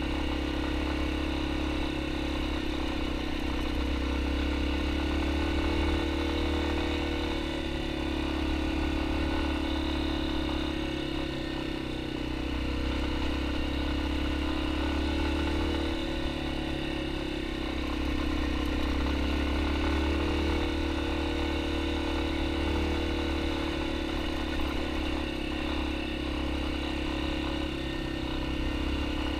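Yamaha XT250's single-cylinder engine running steadily as the motorcycle rides along, its pitch rising and falling a little with the throttle.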